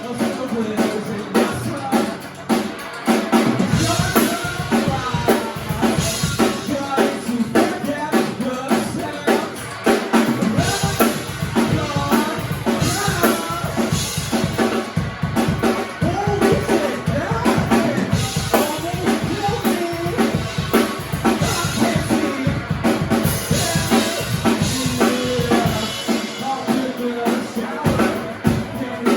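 A rock band playing a song live, with a full drum kit (bass drum, snare and rimshots) keeping a steady beat under the other instruments.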